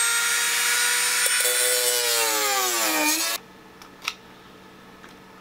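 Dremel rotary tool cutting into a wooden cabinet panel: a steady high whine over loud grinding, its pitch falling in the second half. It cuts off abruptly about three seconds in, leaving quiet with a couple of light knocks.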